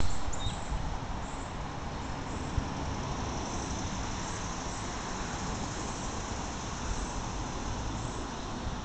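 Steady outdoor background noise with a low rumble and no clear single source, with a faint brief chirp near the start.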